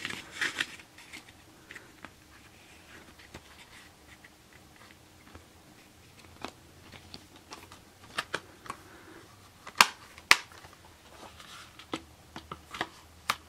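Clear plastic Blu-ray case and its paper cover sleeve being handled: light rustling with scattered small clicks and taps, and two sharper clicks about half a second apart a little after the middle.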